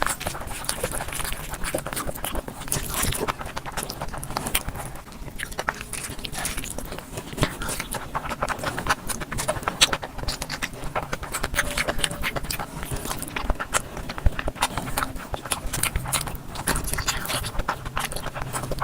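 Close-miked chewing and eating of biryani: a steady run of small mouth clicks and smacks, with a few louder ones about halfway through.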